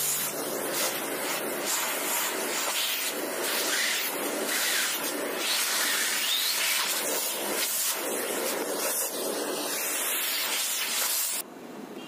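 Philips PowerPro Compact bagless canister vacuum cleaner running, its nozzle drawn over sofa upholstery: a steady rushing hiss of suction air that cuts off shortly before the end.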